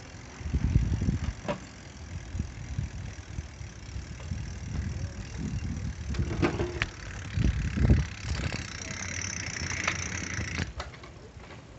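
A bicycle ridden over brick paving. Low gusts of wind buffet the microphone, and the bike gives off clicks and rattles. A high buzz runs from about eight and a half to nearly eleven seconds in.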